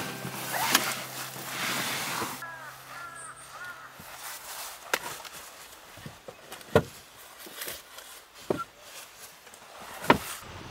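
Scattered sharp knocks and clunks of camping gear being handled and packed, four or five spread a second or two apart, the loudest near the end. A few seconds in come three short rising-and-falling calls from an animal, and background music ends in the first two seconds.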